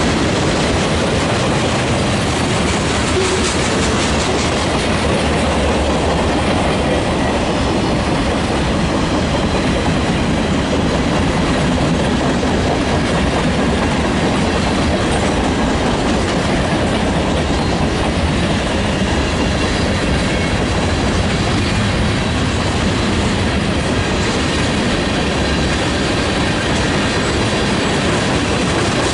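Railroad cars rolling past at a steady speed: continuous wheel-on-rail noise with clickety-clack over the rail joints. The level holds even throughout, with no horn.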